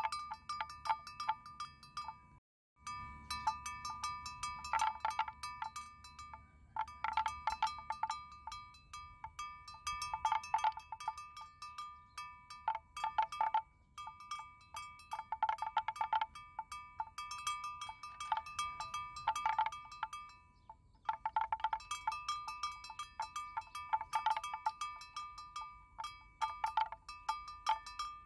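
Bells clinking and ringing at the same few pitches in irregular clusters of strikes, with short pauses between clusters. The sound cuts out completely for a moment about two and a half seconds in.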